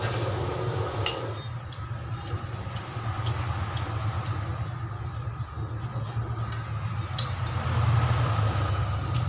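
A spoon clinking against a plate of fried rice a few times, over a steady low hum that swells a little near the end.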